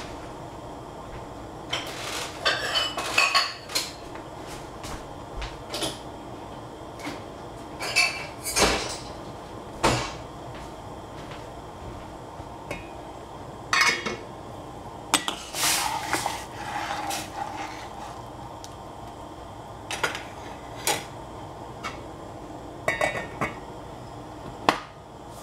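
Kitchenware being handled: pots, bowls and utensils clink and knock irregularly, a couple of dozen sharp strikes, some ringing briefly, over a steady background noise.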